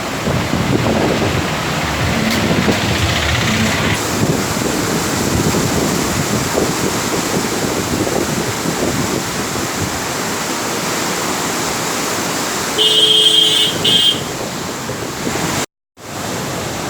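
Steady rush of the Godavari's floodwater pouring through a barrage. A vehicle horn sounds for about a second and a half near the end, and the sound cuts out briefly just after.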